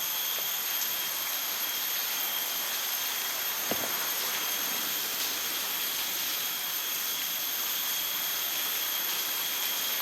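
Steady outdoor ambience: an even rushing noise with a constant high-pitched whine over it, and a faint knock about four seconds in.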